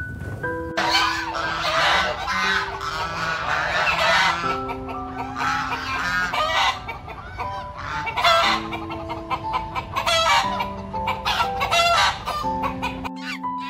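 Chickens clucking and a rooster crowing, starting about a second in, over steady background music.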